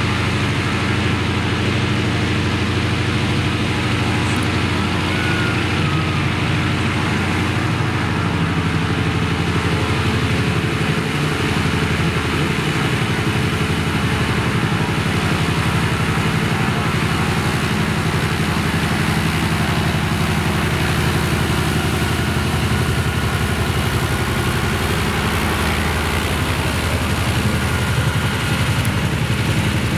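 Antonov An-2's nine-cylinder radial engine running steadily at low power as the biplane taxis on grass, an even drone with no rise in power.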